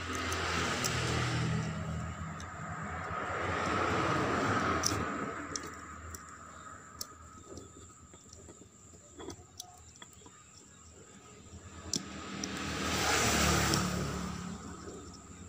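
Road traffic passing by, three times swelling up and fading away over a few seconds each, with a few small clicks of metal starter-motor parts being handled in between.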